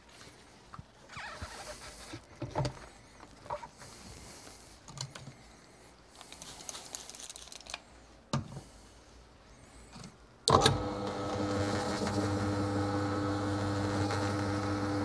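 Scattered clicks and knocks from a bowling ball being handled and set into a ball spinner, then about ten seconds in the spinner's electric motor switches on with a sharp click and runs with a steady hum, spinning the ball for sanding.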